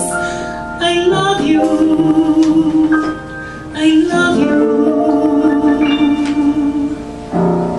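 A woman singing a slow love song live with piano accompaniment, holding long sustained notes as the song draws to its close.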